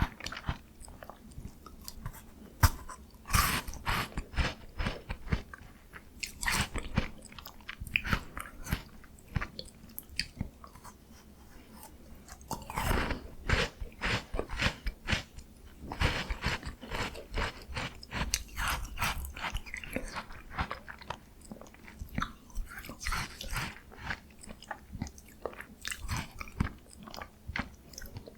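Close-up chewing and biting of a miniature Jaws Bar ice cream bar: crunchy crackles and clicks from the frozen bar between the teeth, coming in bouts with short pauses.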